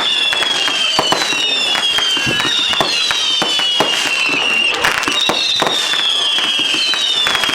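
Fireworks going off in quick succession: several whistling fireworks overlap, each whistle falling in pitch over a second or two, among many sharp bangs and cracks.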